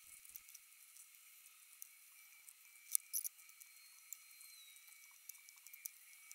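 Faint, scattered clicks of small plastic LEGO pieces being spread out and picked over on a desk, the sharpest pair about three seconds in.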